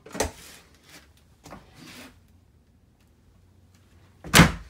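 Short rubbing swishes: one brief swish right at the start, a couple of faint ones in the middle, and a louder, longer rub about four seconds in.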